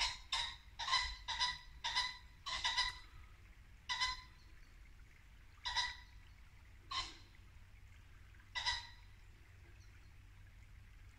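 A series of short, sharp, pitched animal calls, coming about two a second at first and then slowing to single calls a second or more apart, ending a little after two-thirds of the way through.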